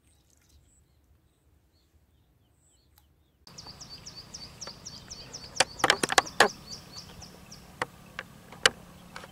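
Faint bird chirps over near silence, then a bird repeating short falling chirps, about four a second, over outdoor ambience. Loud sharp clicks and knocks come in a cluster in the middle, with a few single ones near the end.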